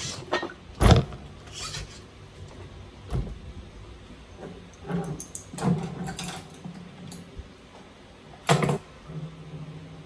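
Scattered clicks and knocks of small parts and tools being handled on a large-scale RC truck's chassis, the loudest about a second in and another sharp one near the end. A low steady hum comes and goes underneath.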